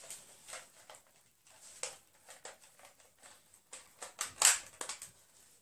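Irregular knocks, clicks and rustles of things being picked up and handled, the loudest knock about four and a half seconds in.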